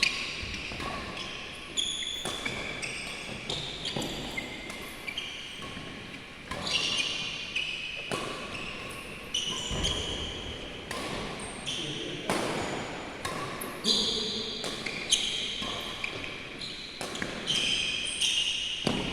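Indoor badminton play: sharp racket hits on the shuttlecock every second or so, with short high squeaks of shoes on the court floor, ringing in a large hall, over background voices.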